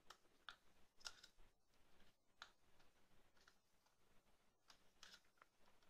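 Faint, irregular plastic clicks and scrapes as a plastic pry tool works around the housing of an HTC Wildfire S smartphone, freeing the volume and power buttons.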